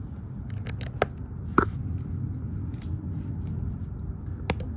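A few sharp clicks and light handling noise as a part is screwed back in place, over a low steady hum.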